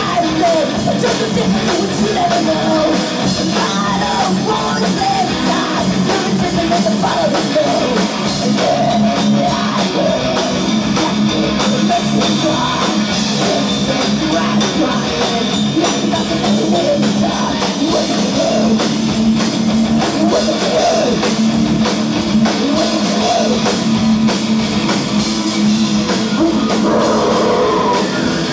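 Rock band playing live: electric guitar, electric bass and drum kit, with a vocalist singing over them.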